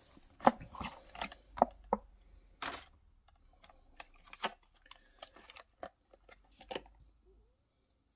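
Clear plastic blister packaging clicking and crackling as a small diecast model tank is pried out of its plastic tray by hand. Irregular short clicks, thicker and louder in the first three seconds, then sparse light ticks.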